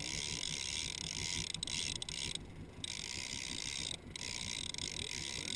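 Large conventional trolling reel being cranked, its gears giving a steady high whirring clatter that stops briefly twice when the cranking pauses, over a low rumble.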